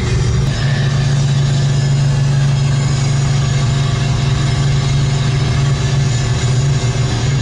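Car engine and road noise droning steadily inside the cabin while cruising.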